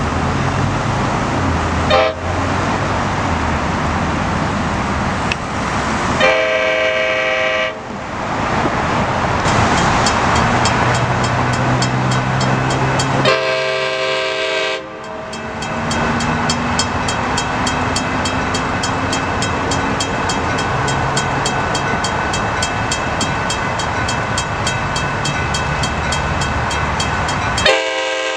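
Train horn blowing over the steady noise of a moving train: a short toot about two seconds in, then long blasts of about a second and a half at around six and thirteen seconds, and another starting near the end.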